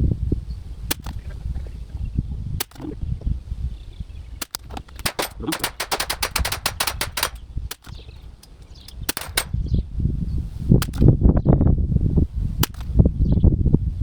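Sped-up recording of an Anschutz 1761 .22 LR rifle firing from a bench: sharp cracks and clicks crowd together, with a dense rapid run of them in the middle. Gusting wind rumbles on the microphone underneath.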